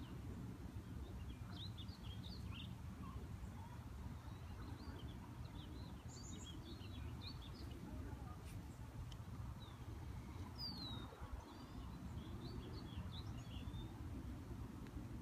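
Small birds chirping in short clusters of quick high notes, a few times with pauses between, over a steady low outdoor rumble.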